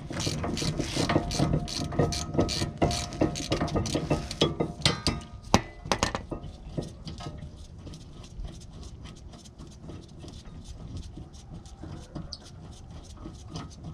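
Ratchet wrench clicking in a quick steady run as the rear brake caliper bracket bolts are turned out, with a sharp metal clank about five and a half seconds in. After that come fainter clicks and rattles of the bracket being handled.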